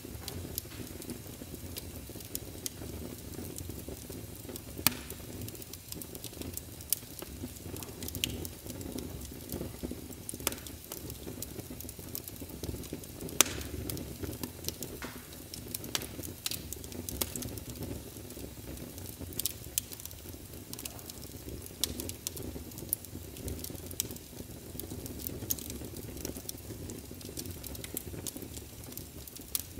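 Crackling fire sound: irregular sharp crackles and pops, a few much louder than the rest, over a steady low rumble.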